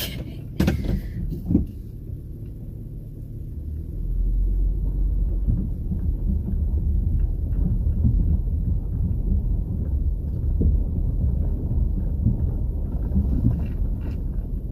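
Car interior rumble of a moving car, a steady low drone that grows louder about four seconds in. There are two short knocks within the first two seconds.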